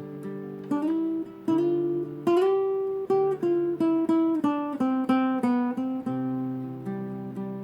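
Acoustic guitar playing a slow, plucked melody, single notes and chords ringing out and fading.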